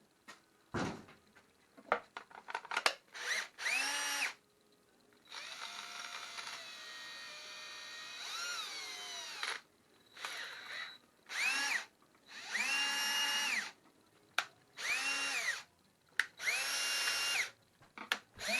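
DeWalt 20V cordless drill, freshly reassembled, run in a series of trigger pulls. The motor whine climbs as it spins up and falls away on release, with one longer run of about four seconds whose pitch sags and then rises. The gearbox is stuck in first gear, which the owner puts down to a part not sitting in the right hole. A few handling clicks come before the first run.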